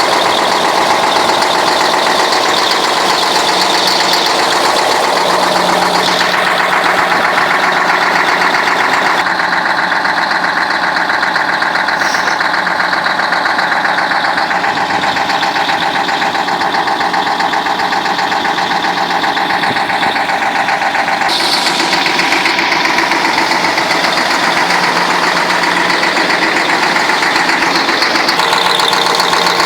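YaMZ-6581.10 V8 truck diesel running steadily, with an occasional change in its note. The owner is recording it to pin down a knock he cannot explain.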